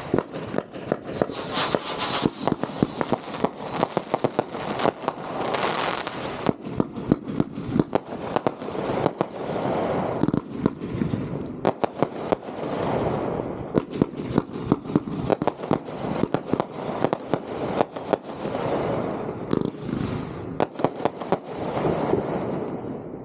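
Aerial fireworks going off in quick succession, a dense string of sharp pops and bangs over hissing crackle that swells and fades several times, dying down near the end.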